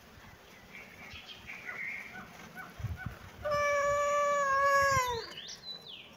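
Domestic cat giving one long meow about halfway through, holding steady in pitch and then dropping off at the end.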